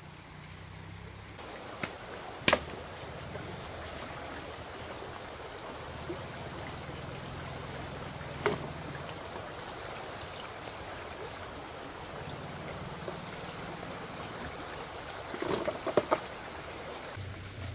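Steady rushing of a stream's running water, with a few sharp clicks or knocks on top.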